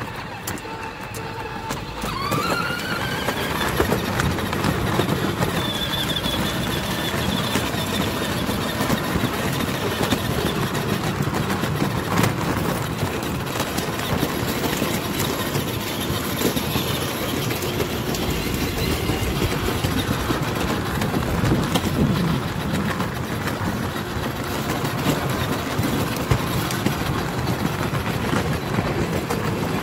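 Children's electric ride-on motorbike rolling over paving stones, its plastic wheels rumbling and rattling steadily. About two seconds in, an electric motor whine rises in pitch as it picks up speed.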